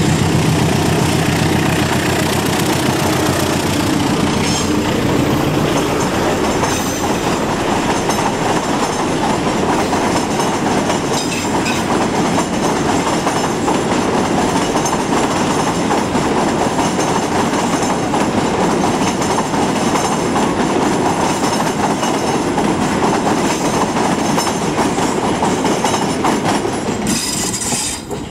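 A diesel-electric locomotive's engine runs as it passes, then a string of passenger carriages rolls over a steel truss railway bridge, giving a steady loud noise of wheels on rail. The sound changes abruptly near the end.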